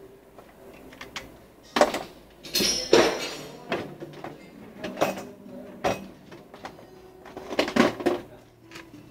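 Irregular knocks and clatters of hard objects being handled, loudest about two to three seconds in and again near eight seconds.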